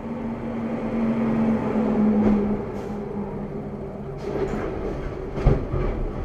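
A heavy truck crash: a steady droning tone for about the first two and a half seconds, then crashing bangs about four seconds in and the loudest impact about five and a half seconds in.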